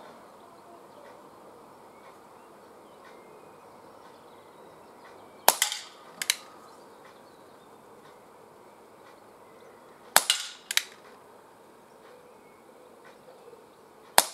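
Three shots from an ASG Schofield 6-inch CO2 pellet revolver, a few seconds apart. The first two are each followed within a second by a lighter, sharp knock.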